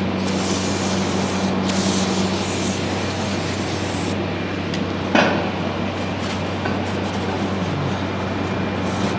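A spraying hiss lasting about four seconds over a steady low machine hum, then a single sharp knock a little after five seconds in.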